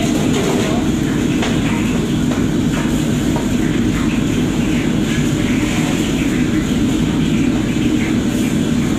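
Steady loud roar of a commercial kitchen's gas wok burners and extraction hood running continuously, with faint clinks of wok utensils over it.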